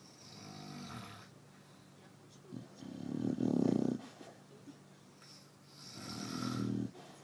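Chow Chow dog snoring in its sleep: three snoring breaths about three seconds apart, the middle one the loudest and rattliest.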